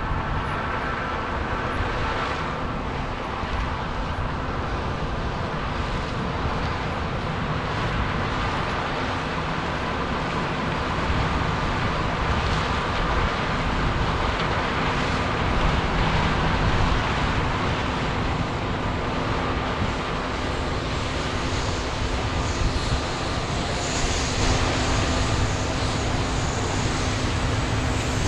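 Large diesel farm machinery running steadily, with a constant engine drone and hum and a dense mechanical noise.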